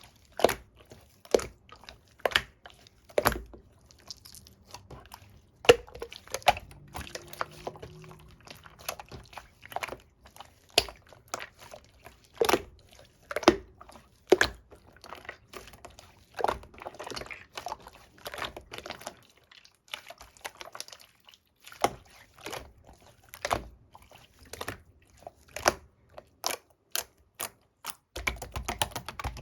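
Jiggly pudding-textured slime being squeezed and poked by hand, making irregular wet clicks and pops a few times a second, with a short pause about two-thirds of the way through.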